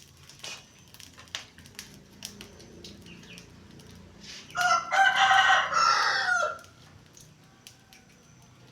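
A rooster crows once, a loud call of about two seconds starting around the middle, after a few light scattered clicks.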